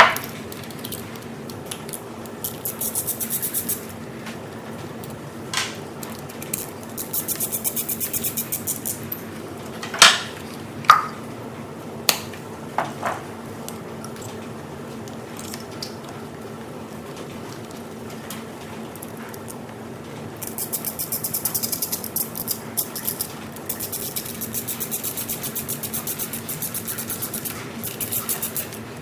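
Hand tools at work changing a Mercedes ignition coil: several runs of fast, evenly spaced ratcheting clicks, the longest near the end, with a few single sharp metallic clinks in between, over a steady low hum.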